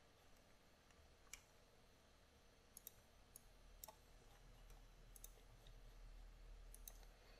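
Near silence: a low hum with a few faint, scattered computer mouse clicks.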